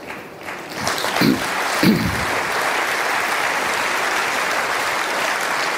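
Audience applauding. The applause swells up in the first second and then holds steady, with two brief voices calling out about one and two seconds in.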